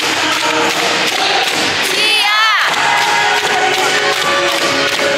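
Volleyball arena crowd cheering and chanting in unison over loud cheer music from the PA, with steady banging of plastic cheer sticks. A brief high sliding sound cuts through a little past two seconds in.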